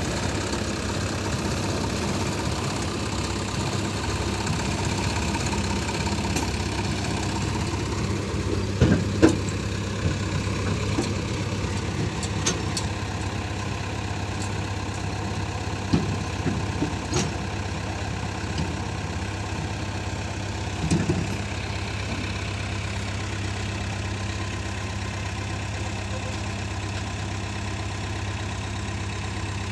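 Diesel engine of heavy machinery idling steadily, with a few short sharp knocks, two about nine seconds in and more around sixteen and twenty-one seconds.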